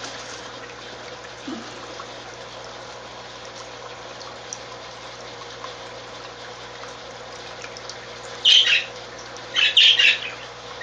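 Steady running-water noise from the fish room's pond and tanks, then parakeets squawking loudly in several short bursts over the last couple of seconds.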